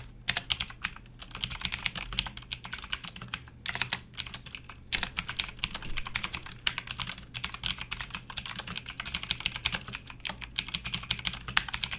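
Motospeed CK101 mechanical keyboard with Outemu Blue clicky switches being typed on, a fast, irregular run of sharp key clicks with a few brief pauses.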